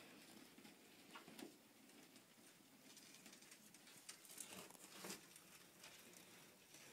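Near silence, with a few faint clicks and rustles scattered through it.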